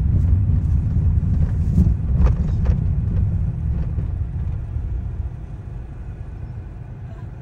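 Low rumble of road and engine noise inside a small hatchback's cabin (a Honda Fit), fading steadily as the car slows into an expressway toll lane. Two faint ticks come a little over two seconds in.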